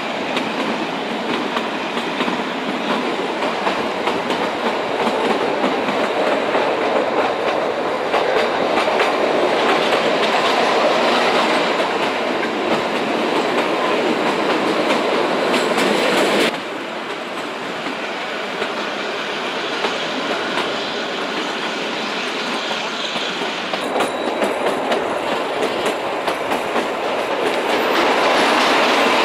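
Kalka–Shimla narrow-gauge toy train running, its wheels clattering over the rails with the steady rumble of the coaches, heard from the open side of a moving carriage. The sound drops suddenly about halfway and grows louder near the end.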